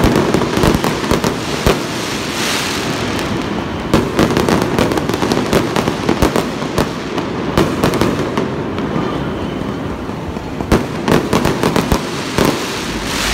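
Aerial fireworks going off in a continuous rapid barrage of bangs and crackling. Clusters of sharper, louder reports come about four seconds in and again near the end.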